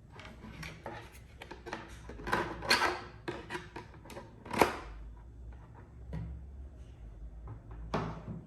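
Handling noises: a run of clicks, scrapes and light knocks, with a sharp knock about four and a half seconds in and another near the end.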